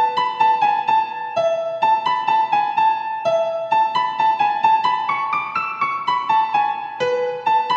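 Background music: a piano-like keyboard playing a quick run of single notes.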